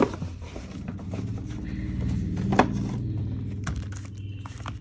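Handling noise: the cellophane-wrapped perfume box is set down on a wooden tabletop with a knock. A sharper click follows about two and a half seconds in, and a few light ticks come near the end. Under them runs a steady low hum that swells in the middle and then fades.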